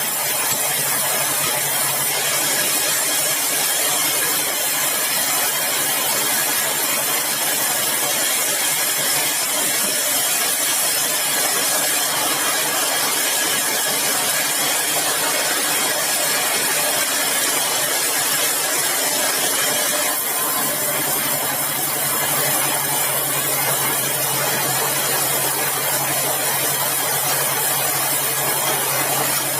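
Engine-driven sawmill circular saw running steadily, a loud continuous machine noise with a low hum under a hiss-like top end. The hum shifts slightly about twenty seconds in.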